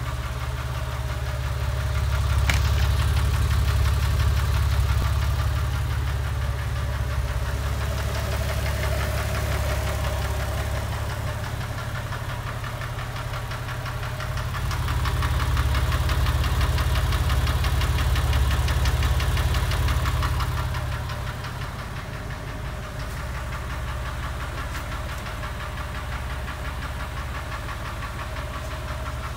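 Porsche 996 3.4-litre flat-six idling warm with a fast, steady ticking over the engine hum, louder for a few seconds twice and echoing in a garage. The owner cannot tell whether the tick is an exhaust manifold gasket leak, a tappet or piston slap.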